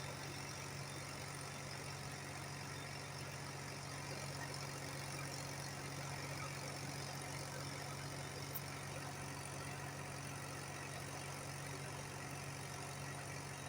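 Backhoe loader's diesel engine idling steadily, with an even low hum that does not rise or fall.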